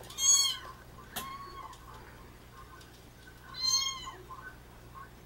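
A kitten meowing twice, about three seconds apart, each a high, arching meow, the first the louder, played back from a video. A short knock comes about a second in.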